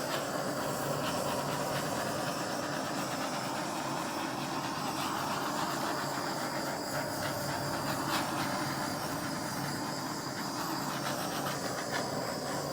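Hand-held blow dryer running steadily, a constant rushing hiss of air with a low hum under it.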